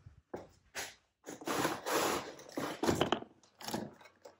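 A few short knocks and scuffs, then a longer scraping rustle lasting about two seconds and a last knock near the end: things being handled close to the microphone.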